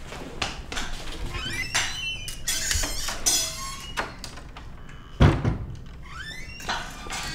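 Wooden door creaking on its hinges in several short rising squeaks, with one loud thud about five seconds in as it is pulled shut.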